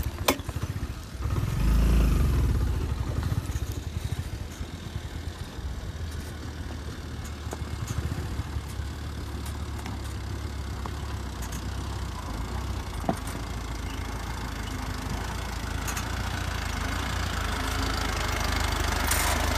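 Suzuki motorcycle engine running steadily at low speed on a rocky dirt track, with a few sharp knocks and rattles from the bike. Near the end the engine noise grows louder as an oncoming jeep draws close.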